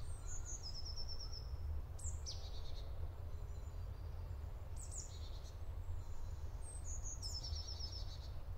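Songbirds singing: four short, high song phrases with quick repeated notes, a second or two apart, over a low steady rumble.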